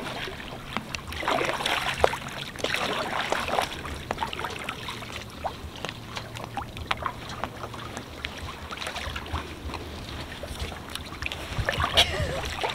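Paddle strokes in water beside a small inflatable vinyl raft: irregular splashes and drips as the blade dips and lifts.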